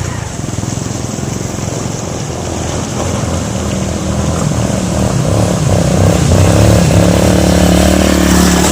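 Toyota Avanza's engine revving hard under load as the car takes a run at a muddy slope, growing louder through the second half.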